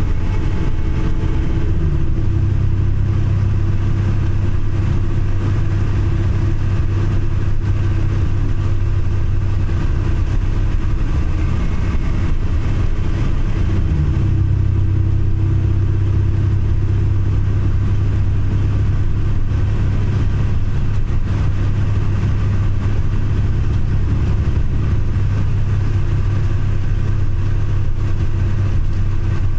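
Bus engine and road noise heard from inside the passenger cabin: a steady low drone that shifts in pitch twice, about two seconds in and again about fourteen seconds in.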